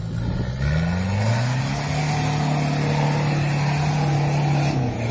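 Off-road vehicle engine revving up over the first second or so, held steady at high revs for a few seconds, then dropping back near the end.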